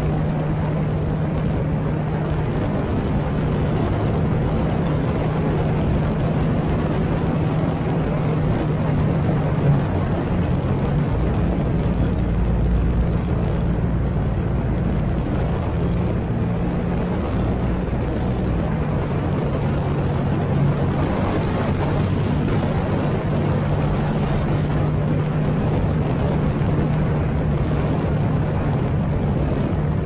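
Motorcycle engine running steadily at road speed, with a rush of wind and road noise over it. The steady engine note wavers and breaks up through the middle, and there are two brief bumps about ten and twenty-one seconds in.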